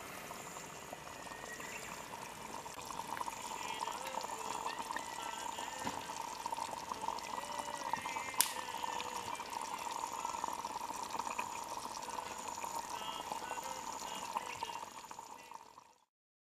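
Steady sound of running water, with short high chirps scattered over it and a faint high note repeating about once a second. It fades out near the end.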